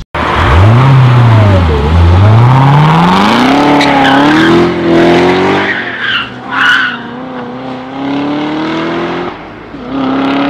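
Chevrolet Corvette C7's V8 revving hard, dipping once and then climbing for several seconds. About six seconds in, tires squeal twice as the rear end slides out. The engine then runs steadily and eases off near the end.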